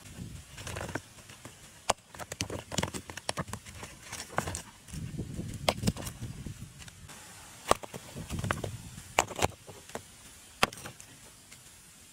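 Rough stones knocking and grinding against each other as they are picked up from a rock pile and set down. There is a string of sharp clacks a second or two apart, with low scraping between them.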